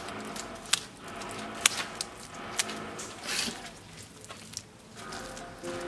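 Wet clay plaster slapped by hand onto a brick stove and smeared across it: a handful of sharp, wet slaps in the first three seconds, then a longer squishing smear.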